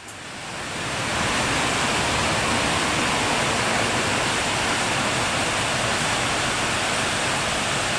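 Waterfall rushing, a steady, even roar of falling water that fades in over about the first second and then holds.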